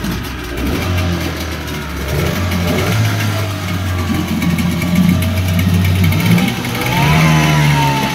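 Yamaha Enduro 15 hp two-stroke outboard motor pull-started, catching at once and running steadily. It is revved up briefly about seven seconds in, then eases back down.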